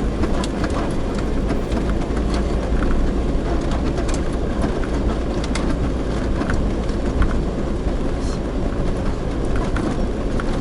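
Camper van driving slowly on a loose sandy road: a steady low rumble of engine and tyres, with frequent small rattles and knocks from the bouncing vehicle.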